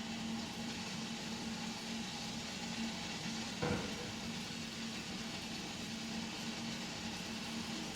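Steady kitchen background hum with an even hiss, and one short knock a little before halfway through.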